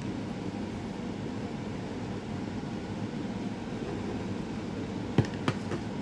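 Steady room hum from a running fan or air conditioner, with two sharp clicks, a quarter second or so apart, about five seconds in and a fainter tap just after.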